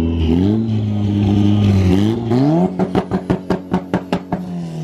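A car engine revved twice, rising in pitch, then held against a limiter for about a second and a half, firing a rapid string of sharp exhaust pops, about eight a second, the sound of a two-step launch limiter or backfire.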